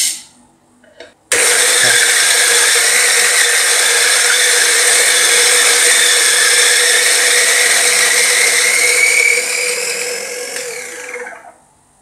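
Latina 600N (Feima 600N) electric coffee grinder switched on and grinding a 20 g dose of beans at its coarse French-press setting. It makes a loud, steady motor-and-grinding noise for about eight seconds, then winds down and stops near the end.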